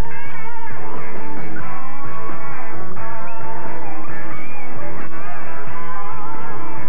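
Rock music with electric guitar playing bending lead lines over a steady bass.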